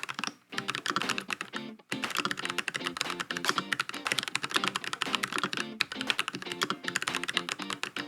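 Fast, continuous typing on the COX CA108BT full-aluminium mechanical keyboard fitted with Gateron switches, a dense run of key clicks broken by two short pauses near the start.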